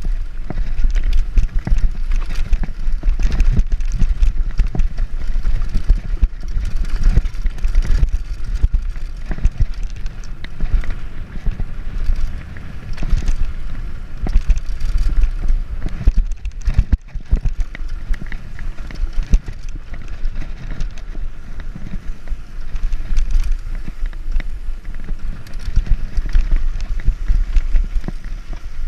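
Mountain bike descending fast on a rough dirt and gravel trail: tyres crunching over the ground with constant rattling and knocks from the bike over bumps, under a heavy rumble of wind on the microphone.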